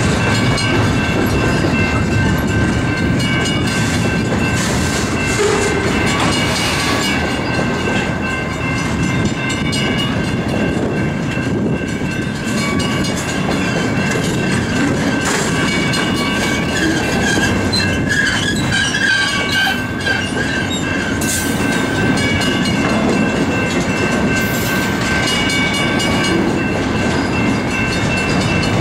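Slow-moving double-stack intermodal container train rolling past, the wheels of its well cars rumbling steadily on the rails, with a thin, steady high-pitched squeal over the rumble.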